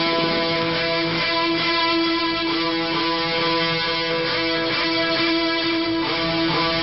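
Background music: a guitar track with long held notes at an even level.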